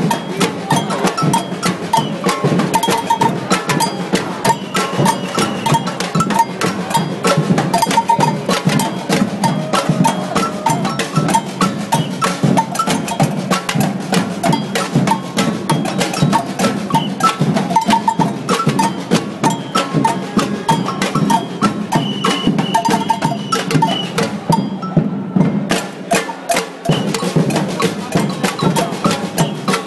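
Samba protest band drumming a dense, driving rhythm on marching snare drums and large bass drums, with a high knocking part on top. About five seconds before the end the drumming breaks off for about a second, then comes back in.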